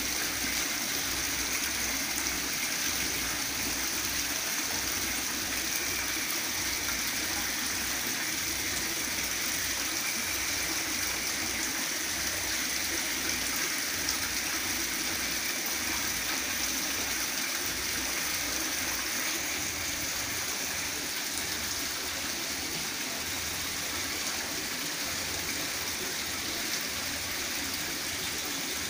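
Water spilling down the small falls of an indoor artificial rockery fountain and splashing into its pond, a steady splashing.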